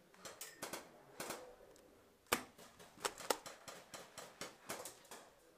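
Airsoft gunfire: irregular sharp clicks and cracks, a dozen or so, the loudest a little past two seconds in and twice around three seconds in.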